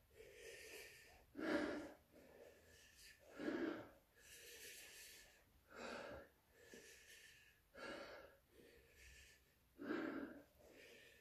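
A man breathing hard through his open mouth, a quick run of in-and-out breaths about one a second with a few stronger ones, to ease the burn of hot chili peppers in his mouth and throat.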